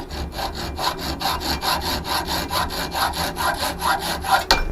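Hacksaw cutting through a small aluminium bracket with rapid, even back-and-forth strokes, trimming off a corner. A sharp click comes near the end.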